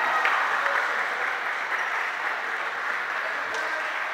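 Spectators applauding the end of a badminton rally. The clapping starts loud and slowly dies down.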